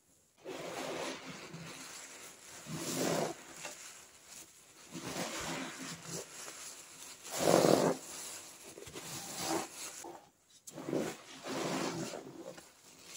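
Wet, sudsy squishing and squelching, as of foam or a soaked sponge being squeezed, in uneven swells with the loudest about halfway through and a brief pause shortly after.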